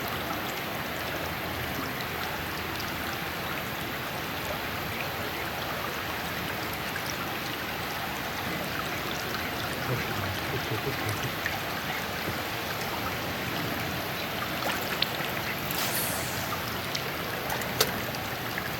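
River water rushing and gurgling steadily, with a few faint clicks near the end.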